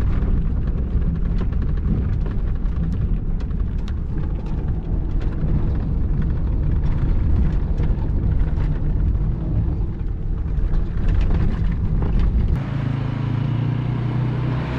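A car being driven on town streets, heard from inside the cabin: a steady low rumble of engine and tyres with small knocks and rattles from the road. About two seconds before the end it gives way to a different, steadier engine hum with a low drone.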